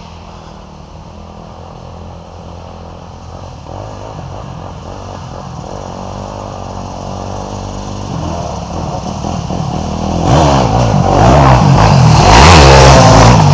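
A pack of dirt bikes approaching, their engines growing steadily louder and revving, until the first riders pass close and loud from about ten seconds in.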